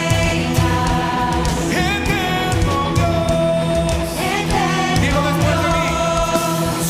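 Contemporary Christian worship song: a voice singing held notes over a full band with a steady drum beat and guitars.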